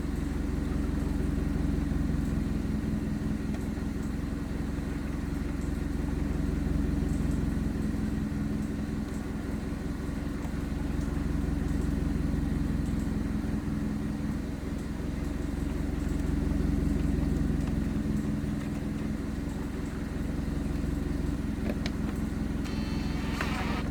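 A steady low engine-like hum running throughout, with a few sharp clicks near the end.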